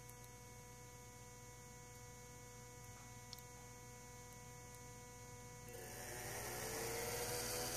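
A faint steady electrical hum. About three-quarters of the way in, a small electric fan motor starts up and speeds up, with a whine rising in pitch and air noise growing, as it is set to 22% speed.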